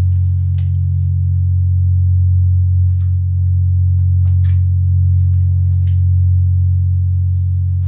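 Om-tuned Tibetan singing bowls sounding a loud, steady low drone of several blended tones, with a few faint light clicks.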